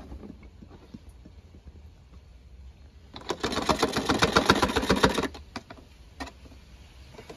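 Motor oil glugging out of a tipped-up quart bottle through a makeshift water-bottle funnel into the engine's oil filler: a rapid run of gurgles lasting about two seconds near the middle as the last quart empties.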